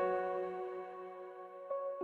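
Calm instrumental music of held notes that slowly fade, with a new note coming in near the end.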